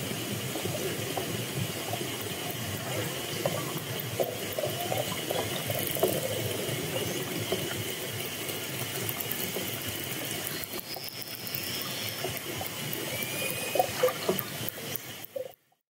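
Underwater hydrophone recording of orcas: a steady rush of water noise with a thin steady high tone, scattered short calls, and rapid trains of clicks in the last few seconds, including a brief whistle. It cuts off suddenly just before the end.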